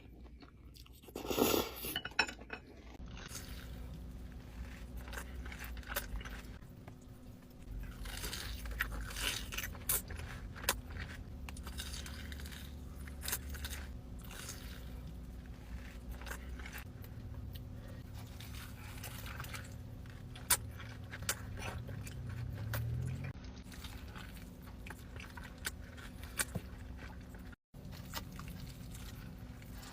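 Close-miked eating: crunchy bites and chewing, with occasional clinks, over a steady low hum. The sound drops out briefly near the end.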